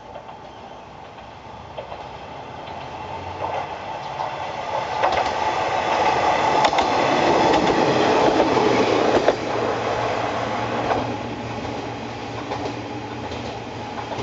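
Kanto Railway Kiha 2400 diesel railcar passing close by. The engine and wheel noise builds over the first half and is loudest around seven to nine seconds in, with sharp clicks from the wheels on the track. It then fades as the car moves away, leaving a low steady hum.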